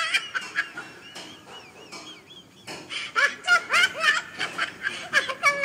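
A young girl giggling. After a cut about two and a half seconds in comes high-pitched, wavering laughter.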